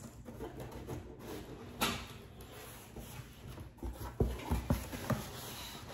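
A large cardboard shipping box is opened by hand, its flaps pulled up and folded back with cardboard rustling. There is a sharp scrape or rip about two seconds in, and a few short knocks and creaks of the cardboard near the end.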